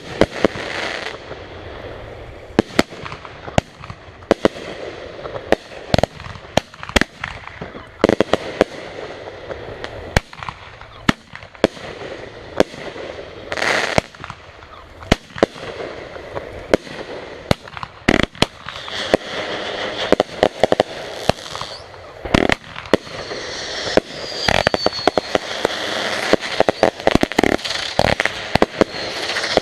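Consumer fireworks going off, dozens of sharp bangs and pops in quick irregular succession with crackling between them, getting denser and louder near the end, with a couple of brief high whistles.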